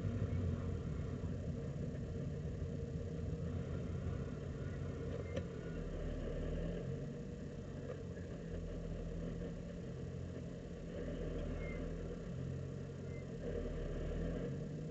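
Supercharged BMW E46 M3's S54 straight-six engine running at low revs, its pitch stepping up and down now and then.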